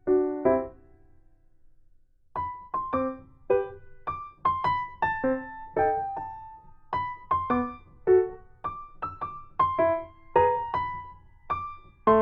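Background piano music: a few notes, a pause of about a second and a half, then a steady run of single notes and small chords, each ringing and fading.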